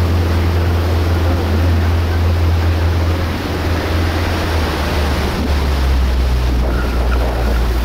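A motorboat under way: the engine makes a steady low drone beneath water rushing past the hull and churning in the wake. The engine note drops slightly about halfway through.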